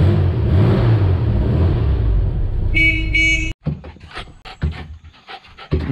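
Air-cooled engine of a VW split-window bus running with a loud rumble, then the bus horn toots twice. After a sudden cut, a small dog barks in short bursts.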